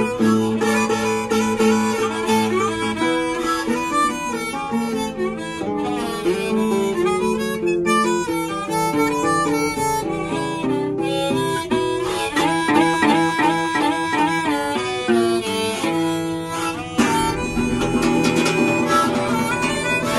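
Harmonica held in a neck rack carrying the melody over a strummed acoustic guitar: an instrumental break with no singing.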